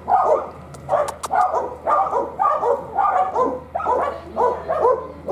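A dog barking steadily, about two barks a second, with a couple of sharp clicks just over a second in.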